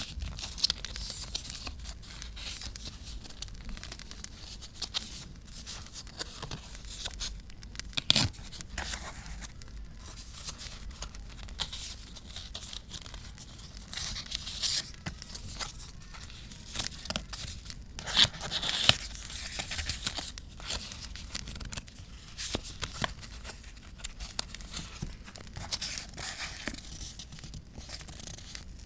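Close-up paper handling: paper being torn and crinkled by hand, with many irregular sharp crackles and a few louder stretches, over a steady low hum.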